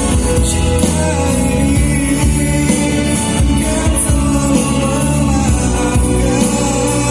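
A song with a singing voice and instruments, played loud and steady through a café's sound system during a sound check.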